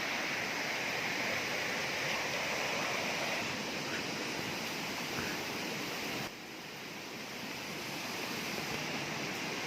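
Steady rush of water, an even hiss with no distinct events. It drops suddenly in level about six seconds in, then slowly swells back.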